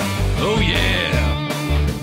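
Background rock music with guitar over a steady bass beat, with a note sliding upward about half a second in.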